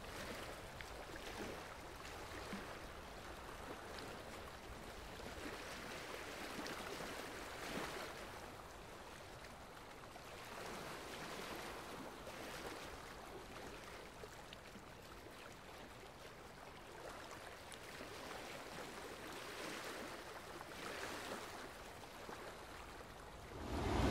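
Gentle sea water lapping at the shore: a faint, soft rush that swells and eases every few seconds. The sound grows suddenly louder right at the end.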